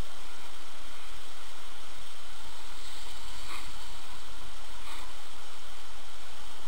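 Steady rushing noise from wind on the microphone of a camera carried downhill by a skier, mixed with skis sliding over snow.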